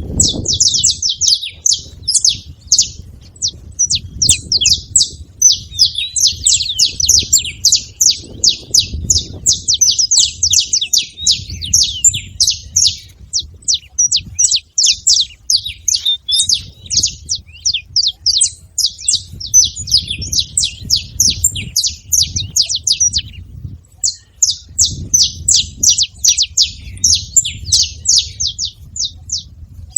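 Saffron finch (canário-da-terra) singing a long, fast run of high chirping notes, with a short break about two-thirds of the way through.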